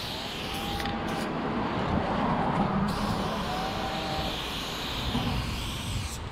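Aerosol spray-paint can hissing through a Montana Level 6 fat cap in long strokes, with a brief break about three seconds in. A low rumble sits beneath it.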